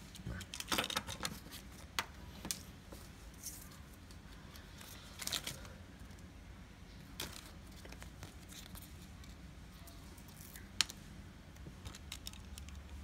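Light handling noises: scattered small clicks and brief rustles of a small plastic toy car being turned over and set down and of sticker paper being peeled, with a cluster of them at the start and a single sharper click later on.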